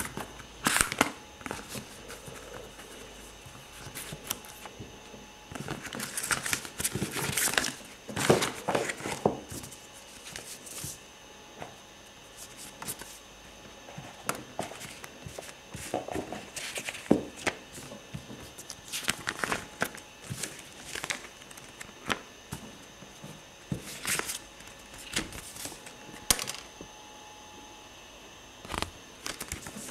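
Paper instruction leaflets and cardboard box inserts being handled and unfolded: irregular rustling and crinkling with light taps, busiest about six to nine seconds in, with shorter bursts later.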